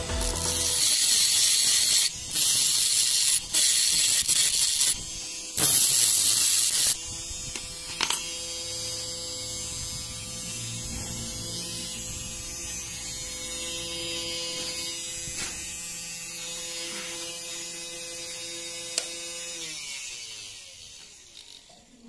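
Homemade mini angle grinder, a 775 DC motor spinning a thin cutting disc, grinding into a thin metal strip in several harsh bursts with short breaks for the first seven seconds. The motor then runs free with a steady whine, and near the end it is switched off and its pitch falls as it spins down.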